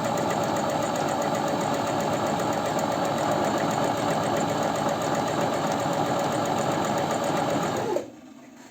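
Janome 509 household sewing machine running steadily at speed, sewing a test seam just after its thread tension has been set, then stopping abruptly about eight seconds in.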